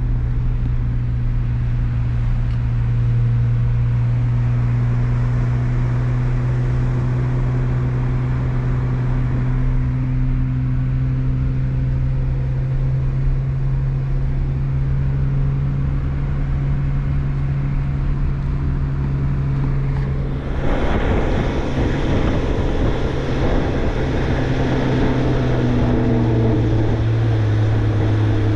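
Jeep engine running steadily at cruising speed, a constant low drone. About twenty seconds in, a louder rushing noise joins it and continues to the end.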